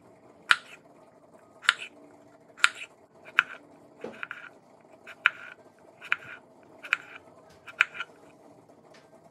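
Kitchen knife slicing a cucumber on a bamboo cutting board: about ten sharp chops, roughly one a second, each stroke ending with the blade striking the board.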